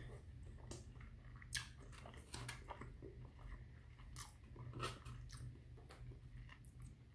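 A person chewing and biting food close to the microphone: faint, irregular crunches and wet clicks, the loudest about one and a half and five seconds in.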